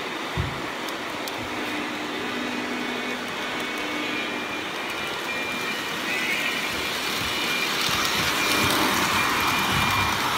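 Model train rolling along the track, a steady rumble of wheels on rail that grows louder as the diesel locomotive draws near toward the end.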